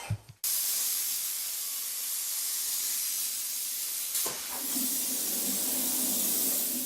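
Plasma cutter cutting holes in a steel plate: a steady, loud hiss of the air and arc that starts suddenly about half a second in, with a low hum joining about four seconds in.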